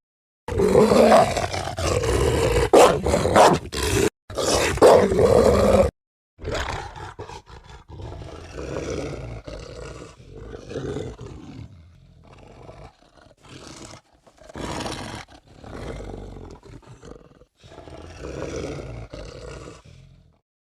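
Werewolf creature sound effects, roars and snarls: a run of loud roars in the first six seconds, then quieter growls with short gaps between them, stopping near the end.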